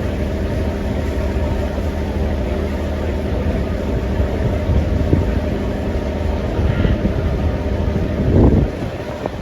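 A river ferry's engine running steadily with a low, even hum and the noise of the hull underway. A brief louder rush comes about eight and a half seconds in.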